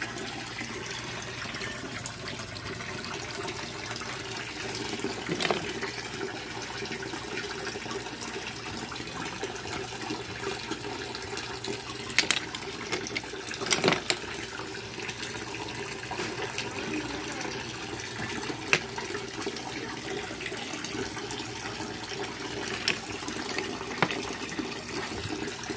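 Water running steadily through a koi pond filter box packed with oyster shells, with a few sharp clicks as the shells are moved by hand.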